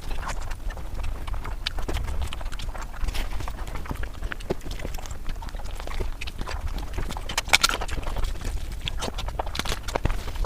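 Close-up eating sounds of a person chewing a mouthful of curry and rice: wet mouth clicks and lip smacks at an irregular pace, with a steady low rumble underneath.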